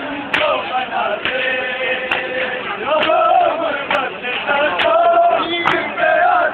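Men chanting a noha lament together while doing matam, striking their bare chests with their hands in a steady beat about once a second.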